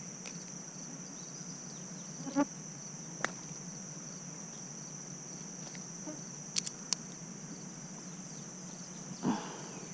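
Steady high-pitched chorus of insects such as crickets, with a few short sharp clicks and knocks scattered through it and one brief louder handling noise near the end.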